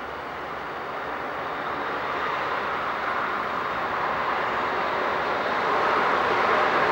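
Steady rushing noise of an approaching vehicle, growing steadily louder, with no clear rhythm or engine tone.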